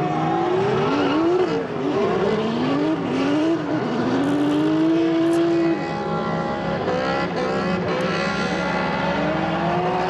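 Drift car engines revving hard, their pitch climbing and dropping every second or so, with a long high-revving pull held from about four seconds in until it cuts back near the six-second mark.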